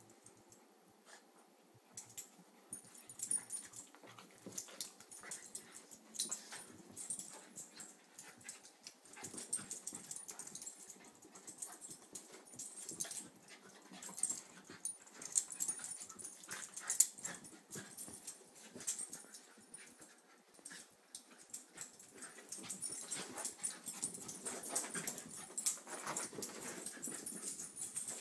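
Two small dogs play-fighting: a steady run of short, irregular sounds from the dogs' breathing and scuffling, getting busier and louder in the second half.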